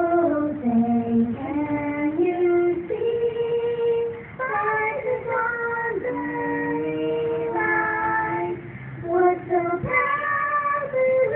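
Two high female voices singing the national anthem, unaccompanied and in two-part harmony, in long held phrases with short breaths between them.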